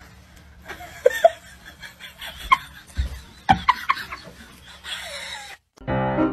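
Quiet snickering laughter from a person, with a couple of sharp knocks. Piano music starts near the end.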